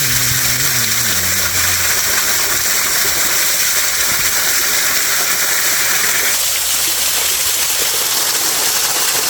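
Waterfall, a steady dense rush of falling water; the hiss shifts slightly about six seconds in.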